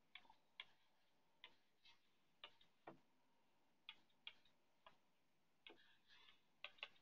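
Faint, irregular taps and short scratches of a stylus writing on a tablet screen.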